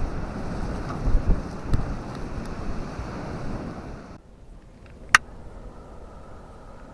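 Strong sea wind buffeting the microphone in gusts, over the rush of surf on the beach. About four seconds in it cuts off suddenly to a much quieter stretch, broken by one sharp click.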